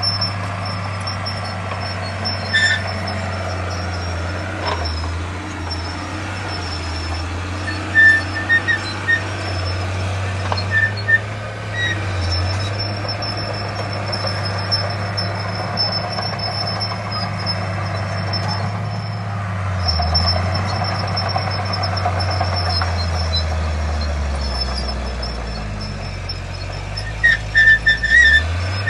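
Diesel engine of heavy earthmoving machinery running steadily, its note sagging and then climbing again near the end. Short high squeaks come through a few times around eight to twelve seconds in and again just before the end.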